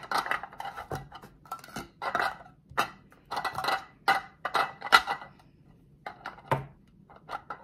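Hard translucent plastic stacking cups clattering and clicking as they are quickly set down and stacked into pyramids: an irregular run of sharp knocks with short bright rings, thickest in the middle and thinning out toward the end.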